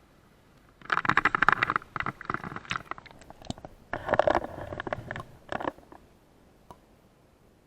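Crunching and scraping close to the microphone, in two bursts of rapid clicks, about 1 to 2.5 s and 4 to 6 s in.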